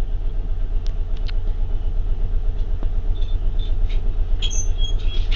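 A steady low hum whose loudness flutters quickly, with a few faint clicks.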